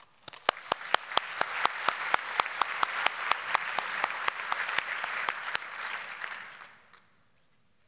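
Audience applauding, with one person's claps close to the microphone standing out at about four a second over the rest. The applause dies away near the end.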